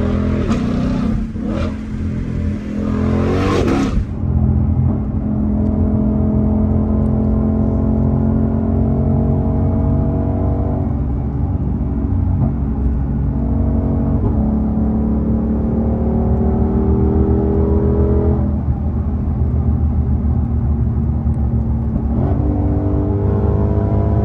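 Supercharged 5.2-litre V8 of a 2021 Shelby GT500 running under way, its note climbing and then dropping back at each upshift of the automatic gearbox, about three times. A loud rush of noise covers the first few seconds and cuts off abruptly.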